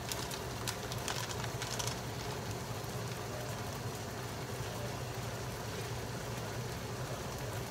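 Chicken pieces frying in oil in a pan, a steady sizzle with a few crackles in the first couple of seconds, over a low steady hum.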